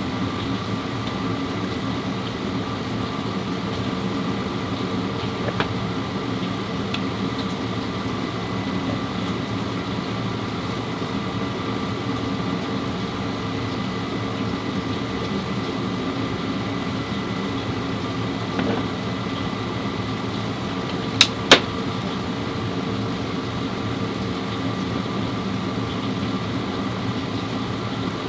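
A steady mechanical hum holding several fixed tones without change, with two sharp clicks in quick succession about three-quarters of the way through.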